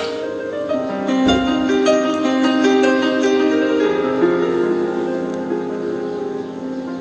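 Instrumental music: sustained notes overlapping into chords, with a strummed stroke about a second in.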